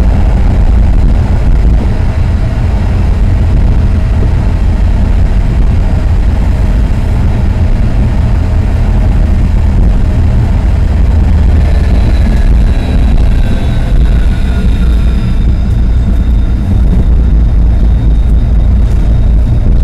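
Tram running along the track, a loud steady rumble. A faint whine slides downward for a few seconds past the middle.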